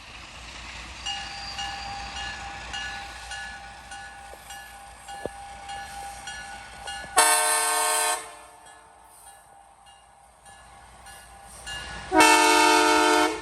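Locomotive air horn sounding two loud blasts, each about a second long, one about seven seconds in and one near the end, after a fainter held tone.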